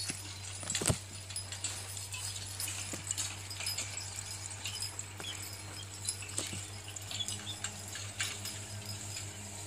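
Six-horse team pulling a horse-drawn riding plow: scattered clinks and knocks of harness and plow, with one sharp knock about a second in, over a steady low hum.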